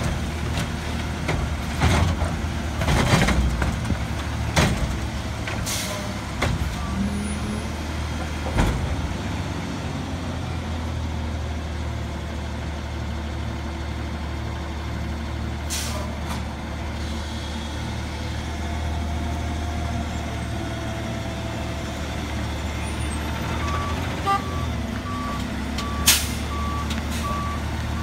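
CNG Autocar WXLL McNeilus front-loader garbage truck running while its Curotto Can arm dumps a roll-out cart: a run of knocks and bangs from the cart and its load in the first several seconds, then a steady engine hum. Near the end the backup alarm starts beeping steadily, and there is one sharp bang.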